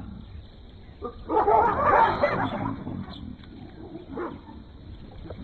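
African wild dogs and baboons fighting: a dense burst of animal calls about a second in, lasting around two seconds, then a single shorter call near the four-second mark.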